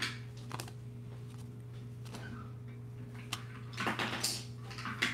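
Topps baseball trading cards being handled and slid against each other: a few scattered flicks and rustles, clustered about four seconds in, over a steady low hum.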